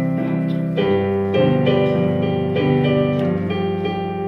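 Keyboard music played live: a melody of held notes, changing every half second or so, over sustained lower notes.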